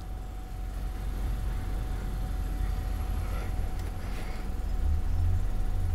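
Car engine idling, heard from inside the cabin as a steady low rumble that grows a little stronger near the end.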